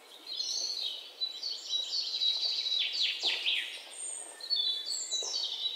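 Several birds chirping and singing, with many high calls and quick downward-sweeping notes overlapping.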